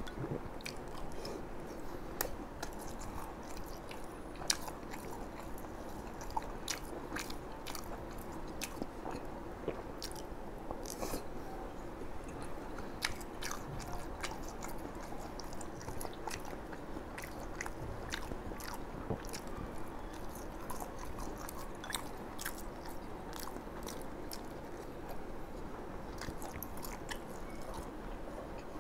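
Close-miked chewing and biting of crispy fried tofu and fried sausage, with many small sharp crunches and mouth clicks throughout.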